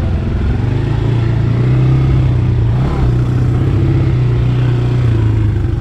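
ATV engine running under way with a steady low drone, pulling a little harder about two seconds in.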